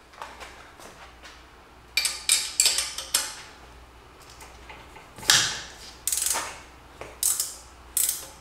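Hand ratchet wrench clicking in short strokes as exhaust manifold nuts are worked loose by hand. There is a quick run of strokes about two seconds in, then single strokes about once a second.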